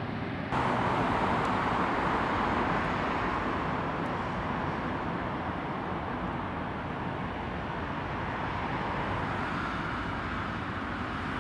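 Jet engines of an Airbus A330-300 (Rolls-Royce Trent 700 turbofans) running as the airliner moves on the runway: a steady, even rush of jet noise. It jumps suddenly louder about half a second in and eases off a little after.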